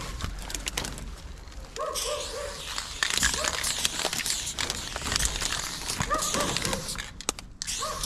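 Aerosol spray paint can hissing in long passes as a silver fill goes onto a rusty metal tank, starting about two seconds in and breaking off briefly near the end. A few short high-pitched chirps sound in the background.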